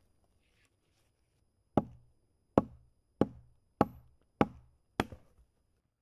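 Hatchet chopping a thin branch laid across a log: six sharp blows, starting about two seconds in and coming roughly one every 0.6 seconds.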